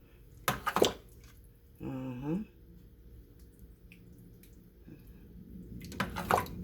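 A spoon clattering against a pot or dish while wet pot pie filling is stirred and spooned, in two short bursts, about half a second in and again near the end. A brief hummed voice sounds around two seconds in.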